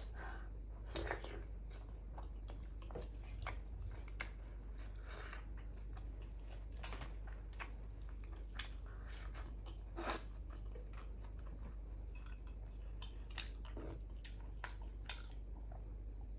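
Close-miked eating: chewing and biting with scattered short clicks and clinks of utensils against dishes, over a steady low hum.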